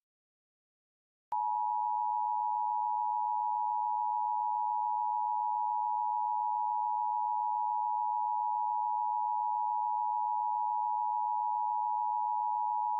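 Emergency Alert System attention tone: one long, steady, unbroken electronic tone that starts about a second in, signalling the start of a tornado watch alert.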